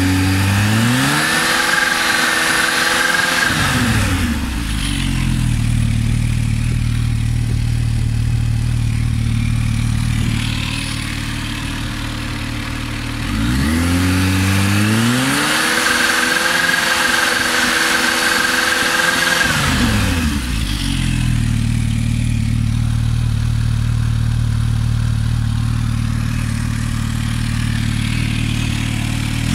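Kawasaki Z H2's supercharged inline-four through a BODIS V4-M-CA stainless steel exhaust, revved up from idle and held steady at about 5500 rpm for a stationary noise test, then dropped back to idle. This happens twice: held about three seconds at the start, and about six seconds from around thirteen seconds in. It measures 97–98 dB against 93 dB in the registration papers, within the 5 dB tolerance.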